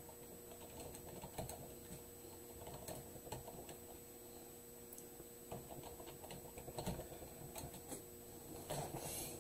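Typing on a computer keyboard: faint, irregular keystrokes as a sentence is typed out.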